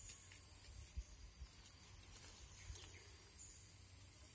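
Faint outdoor ambience: a steady high-pitched insect drone with a few faint chirps, and one soft knock about a second in.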